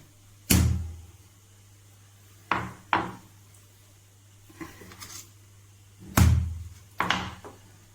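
Dried lesser galangal root being pounded to crack it: about seven sharp knocks at uneven intervals, the two heaviest about half a second in and about six seconds in.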